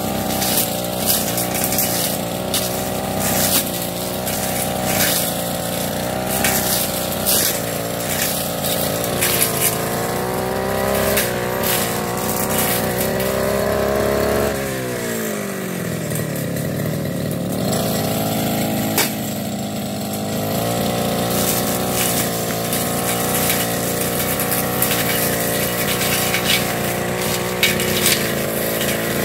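Backpack brush cutter engine running at high revs while cutting weeds, with frequent short crackles and ticks from the cutting head striking vegetation. About halfway through, the engine eases down to idle for a few seconds, then revs back up.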